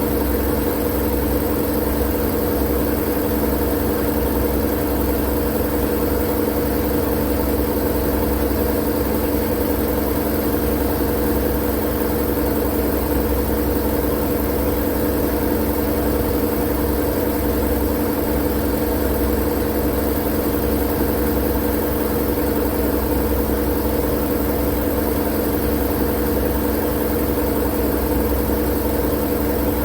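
Steady, unchanging mechanical drone: a continuous noisy hum with a low rumble underneath, used as sleep noise.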